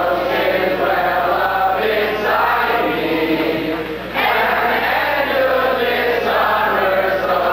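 A large crowd of campers singing together in loud unison chorus, likely their camp alma mater song read from song sheets, in phrases of about two seconds with a short break about four seconds in.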